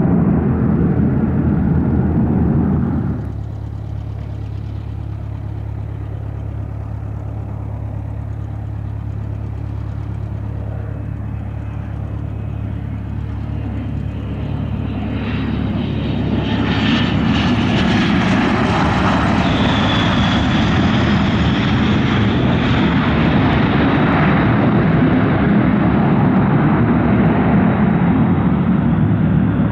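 Business jet turbofan noise. A departing jet's engine noise cuts off about three seconds in. From about halfway, a landing Hawker 800-series jet's engines grow loud, with a high turbine whine over the rumble, and stay loud through its rollout.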